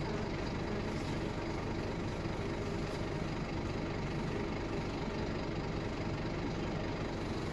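Scania OmniLink single-deck bus engine running steadily, heard from inside the passenger cabin.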